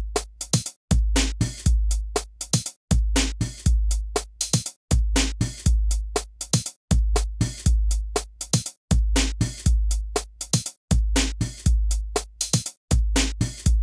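Background music with a steady electronic beat of deep kick drums and sharp clicks.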